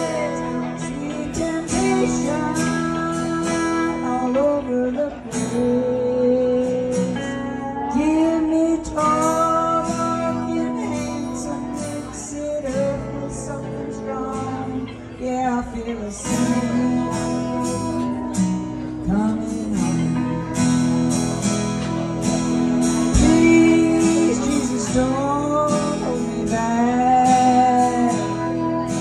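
A woman singing with a strummed acoustic guitar in a live solo performance.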